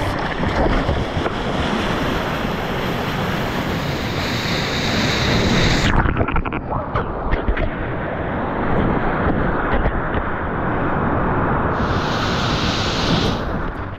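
Surf and rushing water splashing against an action camera at the waterline as a surfer paddles and rides a breaking wave, with wind buffeting the microphone. About six seconds in the sound suddenly turns muffled, dull and low as water washes over the camera.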